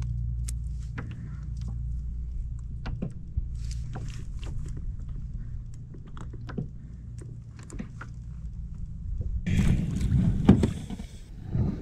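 Light clicks and taps of fishing tackle being handled while bait is rigged on a hook, over a low steady rumble. A louder burst of noise comes about ten seconds in, as the baited rig is let down into the water.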